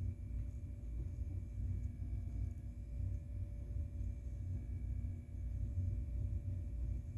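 Steady low rumble with a faint constant hum underneath, unchanging throughout: background room or machine noise.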